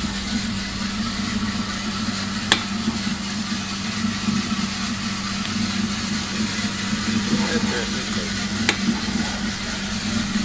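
Probat LP5 coffee roaster running: a steady low hum from its drum and fan motors with a constant hiss above it. Two sharp clicks stand out, about two and a half seconds in and again some six seconds later.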